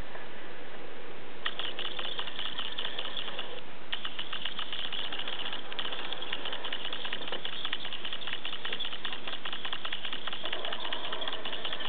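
Black felt-tip marker scratching across paper in long drawing strokes, a dense rapid scratching with a few short pauses between strokes.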